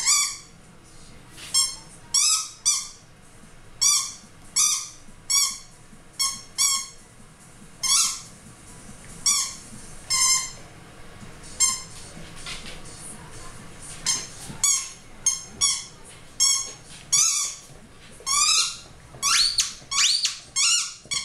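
Rubber squeaky ball toy squeaking over and over as a dog chomps on it. Each squeak is a short rising tone, coming at an irregular pace and faster near the end.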